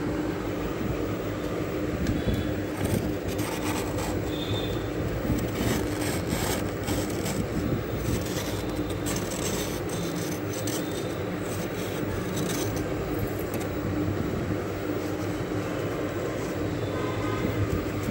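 Thick freezer frost being scraped and rubbed by hand and with a spoon: rough, irregular scraping strokes, thickest in the middle, over a steady low hum.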